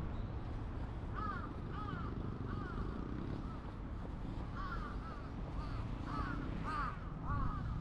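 Crows cawing: a short series of caws about a second in, then a longer run of caws, about two a second, through the second half, over a steady low background noise.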